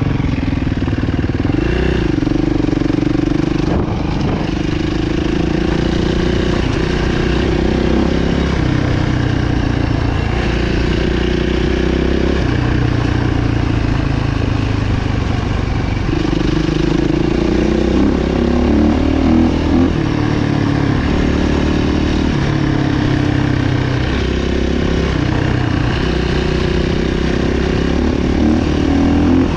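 Motocross bike engines running and revving, their pitch rising and dropping every few seconds with throttle and gear changes.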